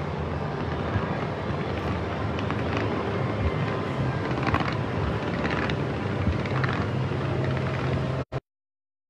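A large fireworks display going off: a continuous deep rumble of bursts with scattered crackling pops, recorded on a phone microphone. The sound cuts out completely for about a second near the end.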